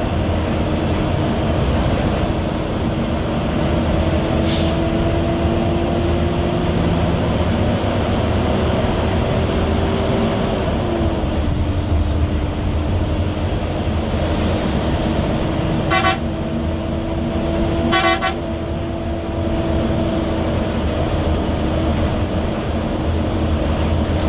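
Steady engine and road drone of a vehicle on a highway, its engine note climbing slowly and then dropping about ten seconds in. A horn gives two short toots about two seconds apart, some two-thirds of the way through.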